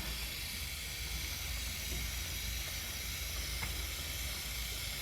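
Aerosol chain lubricant spraying onto a motorcycle chain in one continuous hiss.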